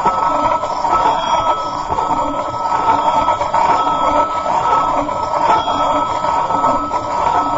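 Metal plate rotating and ringing continuously, a steady metallic ring with a low pulse that comes back about once a second as it turns.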